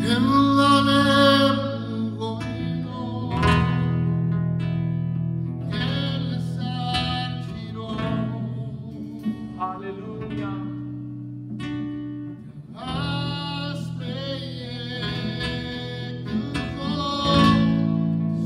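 Live worship music: guitar playing over sustained low notes, swelling near the start and again in the last few seconds.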